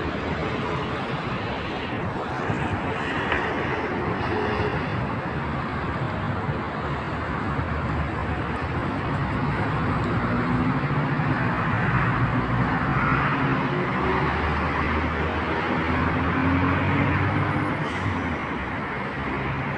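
Steady city road traffic: cars passing on a multi-lane road. Engine hum from passing vehicles swells from about halfway through, then eases near the end.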